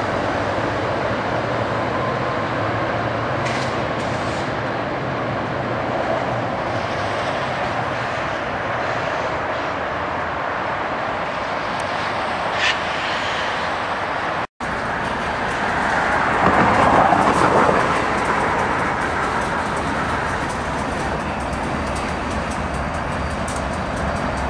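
Trains passing close by: a steady rumble of diesel locomotive engines and wheels on the rails. A passenger train's locomotive runs first. After an abrupt cut about halfway, freight diesel locomotives follow, swelling louder for a couple of seconds soon after the cut.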